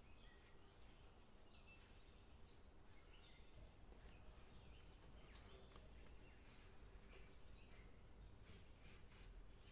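Near silence: a quiet outdoor background with scattered faint bird chirps and a few light clicks around the middle.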